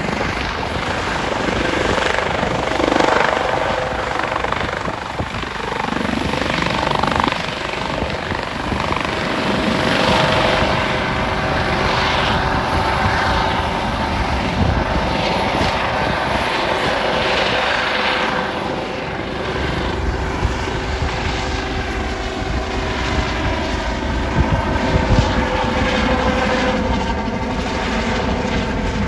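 Airbus AS365 Dauphin air ambulance helicopter lifting off and climbing away: a steady rotor and twin-turbine sound with a constant whine running through it.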